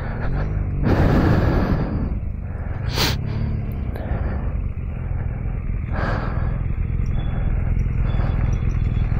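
Motorcycle engine idling with a steady low hum. There are short puffs of noise on the microphone about a second in, about three seconds in and about six seconds in.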